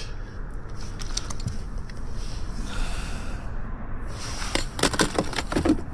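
Handling noises: scattered clicks and light rattles over a low steady rumble, busier in the last second.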